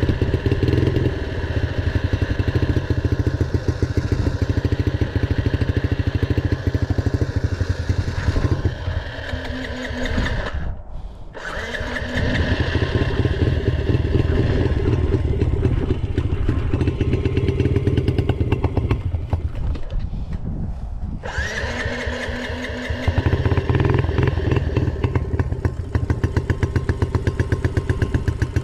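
Small dirt bike engine running under way, revving up and easing off with the throttle. The engine note drops away briefly twice, about ten and twenty seconds in, then picks up again.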